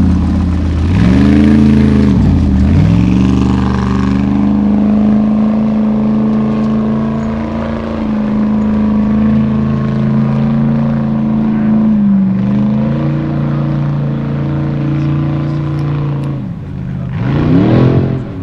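Formula Offroad buggy's engine revving hard on a steep dirt climb: the revs drop and climb back sharply twice at first, then hold high and steady, with a quick dip midway and a fast, loud rise and fall of revs near the end.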